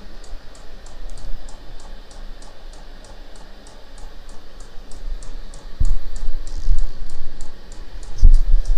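Diesel air heater running at medium setting, its fuel dosing pump ticking evenly about three times a second. From about six seconds in, heavy low rumbles come over it.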